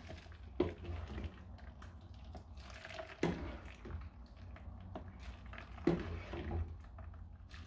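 Boiled penne being ladled from the pot into a wire-mesh strainer, the hot cooking water splashing and dripping through the mesh into the bowl below. The ladle clunks three times, once with each scoop, about every two and a half seconds.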